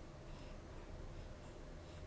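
Faint, light rustles and clicks from small plastic toys and packaging being handled, over a low steady hum.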